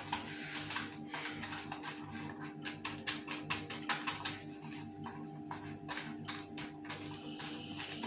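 A brush dabbing oil onto butter paper inside a plastic container: a quick, irregular run of light taps and clicks against the plastic. It is greasing the lining before the batter goes in.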